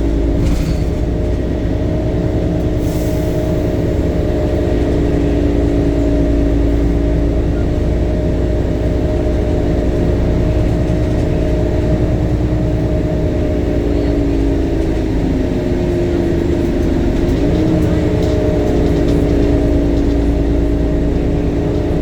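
Temsa Avenue LF city bus running, its DAF Euro 5 diesel and ZF automatic gearbox giving a steady low drone with a whine of several tones. About three-quarters of the way in, the whine sags in pitch, then climbs back quickly.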